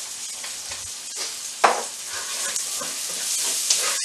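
Sliced onions frying in hot oil in a skillet, a steady sizzle, as garlic is dropped in and stirred. A sharp knock about one and a half seconds in.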